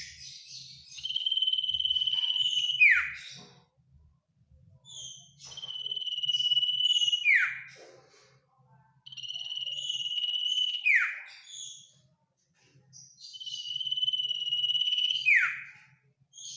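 Common iora (sirtu/cipoh) singing its long drawn-out call four times, each phrase a steady high whistle of about two seconds that ends in a sharp falling note.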